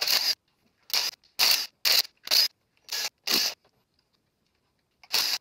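Cordless power driver run in about eight short bursts on the LT4 supercharger's hold-down bolts, backing them out, with gaps between bursts and the last one about five seconds in.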